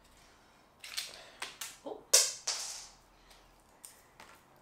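A little bottle of hard-boiled sweets being opened and handled: a run of sharp clicks and rattles, the loudest about two seconds in, then a few fainter ticks.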